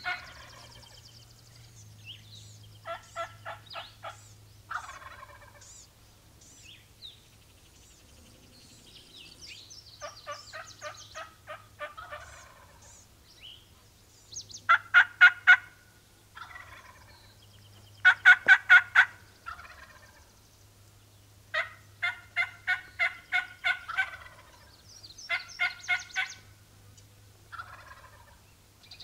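Turkey calling in repeated series of evenly spaced notes, about four or five a second, with the loudest series about halfway through. Small birds chirp faintly between the series.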